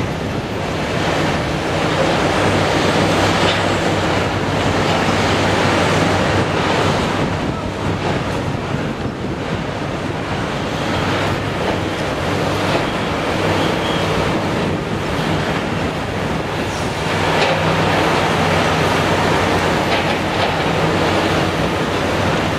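Caterpillar 320D L excavator's diesel engine running under load while it digs clay, the steady engine note swelling and easing in loudness with the digging, under a heavy rushing noise like wind on the microphone.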